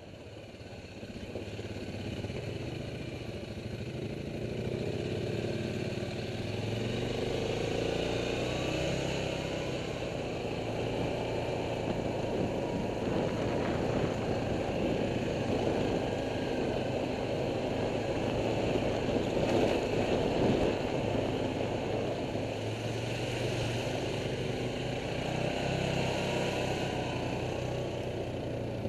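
Quad bike (ATV) engine running under way, heard from the machine itself, its note under a steady rush of noise; it builds up over the first couple of seconds.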